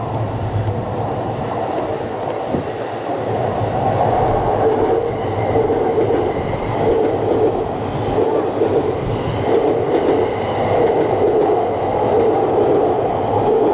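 White electric multiple-unit train running along the track below, a steady rumble with a rhythmic clatter of wheels over rail joints about once a second. It grows louder about four seconds in as the train comes closer.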